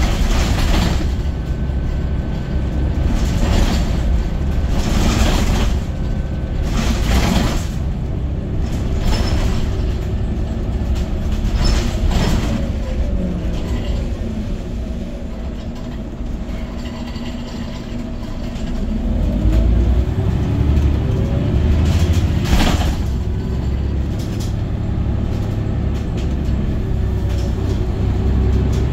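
Scania OmniCity city bus under way, heard from inside the passenger cabin: a steady low drone of engine and running gear, with sharp rattles and knocks from the bodywork every few seconds. About two-thirds of the way through the noise drops for a few seconds, then swells again as the engine pitch climbs.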